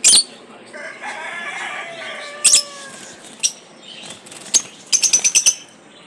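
Caged lovebirds giving short, shrill chirps: single calls now and then, then a quick run of about eight near the end.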